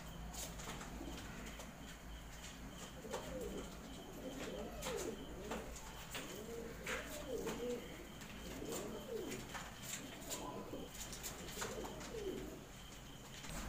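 Hungarian pigeons cooing: a run of repeated rising-and-falling coos from about three seconds in until near the end, with scattered light clicks.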